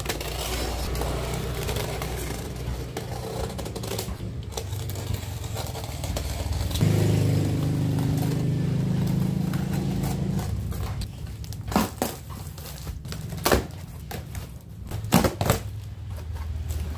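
Box cutter slitting packing tape and cardboard with scraping and crackling, then the cardboard flaps pulled open with a few sharp knocks and rustles in the second half. A low steady hum runs underneath, louder for about three seconds in the middle.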